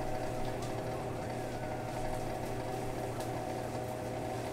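A utensil stirring food in a pan on the stove, with faint light clicks against the pan about every half second, over a steady hum.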